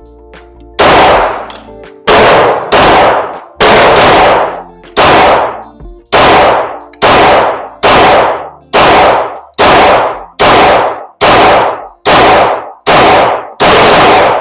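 A .45 semi-automatic pistol fired in a long, steady string of about eighteen shots, roughly one every two-thirds of a second, each with a short echo.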